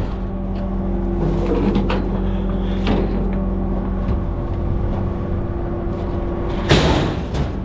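Cotton stripper's engine running steadily, with metal clunks and knocks about three seconds in and again near the end as a new roll of bale wrap is loaded.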